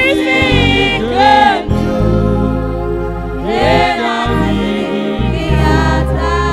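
Gospel song: a voice singing sliding, drawn-out notes over steady held keyboard chords and bass.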